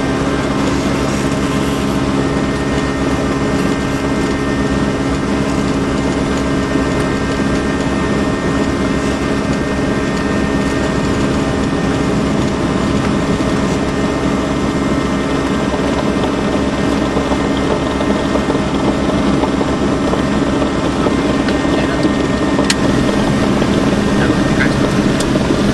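Cessna 172's piston engine and propeller droning steadily, heard inside the cockpit, growing slightly louder near the end.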